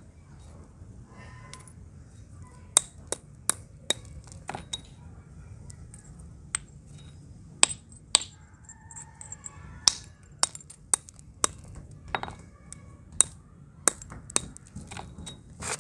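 Metal pestle pounding broken terracotta clay-pot pieces in a small hand-held stone mortar, crushing them into red powder. Irregular sharp knocks and clinks, some much louder than others, starting a few seconds in.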